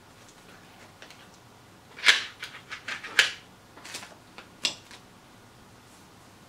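A run of sharp clicks and clatters from small electronic kit parts and circuit boards being picked up and handled on a workbench. The two loudest come about two and three seconds in, followed by a few lighter knocks.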